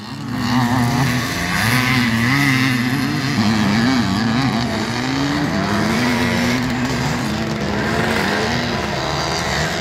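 Vintage motocross motorcycles racing on a dirt track. Their engine notes keep rising and falling in pitch as the riders work the throttle through the course.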